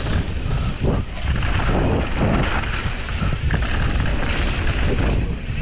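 Mountain bike descending a dirt forest trail: wind buffeting the action camera's microphone over tyre noise on loose dirt, with irregular knocks and rattles from the bike over bumps.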